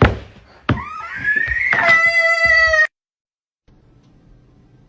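A knock, then a second knock, then a long high-pitched cry that rises in pitch, holds steady and cuts off abruptly.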